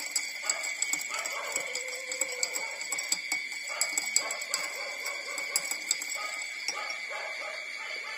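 Newborn puppies whimpering and squeaking while they nurse, in short irregular calls. Scattered sharp clicks and a steady high-pitched whine run underneath.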